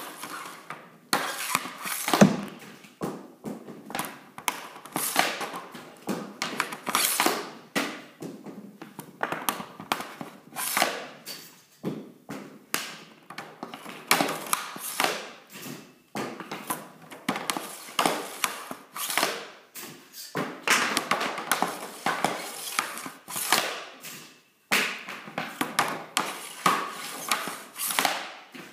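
Hockey pucks being shot off a plastic shooting board with an Easton Synergy EQ50 stick: a quick series of sharp clacks from the blade striking puck and board and from pucks hitting the net and the wall behind it, roughly one every second, each ringing briefly in the room.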